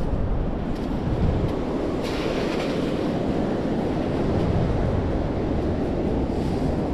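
Wind buffeting the microphone over the steady rush of surf. About two seconds in comes a brief hiss of a long-handled sand scoop digging into the beach sand.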